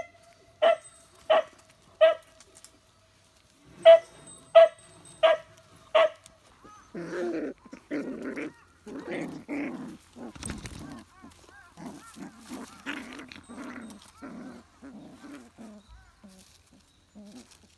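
Eight loud, sharp animal calls in two sets of four, evenly spaced about two-thirds of a second apart. They are followed for the rest of the time by quieter, lower, irregular vocal sounds from beagle puppies wrestling together.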